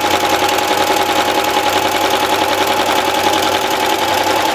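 Singer sewing machine running at a steady speed, sewing a three-step zigzag stitch down stretched fold-over elastic. A fast, even needle rhythm under a steady motor whine.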